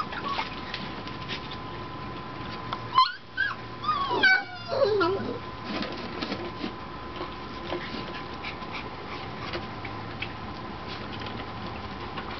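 Six-and-a-half-week-old golden retriever puppies whining and yipping: a few short, high, falling cries about three seconds in and again around four to five seconds, with quieter whimpers between.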